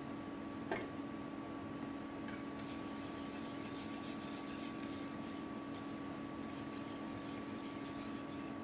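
Wire whisk beating canelé batter in a stainless steel bowl: a fast, even run of scratchy strokes as the wires swish through the liquid and rub the bowl, starting about three seconds in. Before it comes a single sharp knock, and a steady low hum runs underneath.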